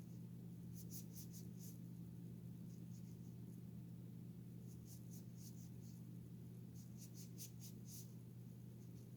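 Quick scratchy rubbing strokes, a few a second, coming in three or four bursts as a small plastic toy football is scrubbed clean, over a steady low hum.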